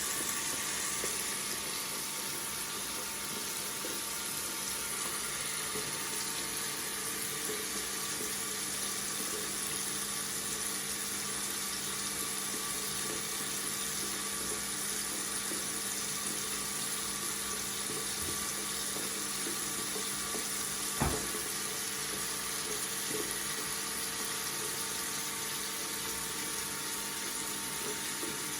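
Tap water running steadily from a faucet, an even rushing stream. A single sharp click about three quarters of the way through.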